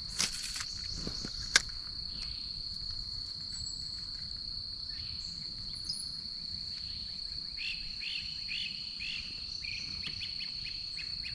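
Insects trilling steadily at one high pitch, with a sharp click about a second and a half in and a run of short chirps in the second half.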